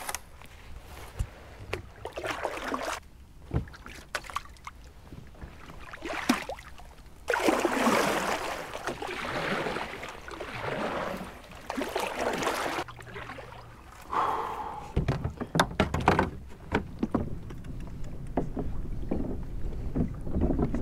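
Hobie Outback kayak being paddled and pedalled through shallow marsh water: water sloshing and splashing around the hull in irregular swells, with scattered knocks and clunks from the paddle and hull.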